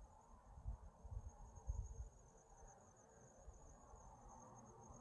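A cricket trilling faintly and steadily in a high, thin pitch, with a few dull low thumps about one to two seconds in.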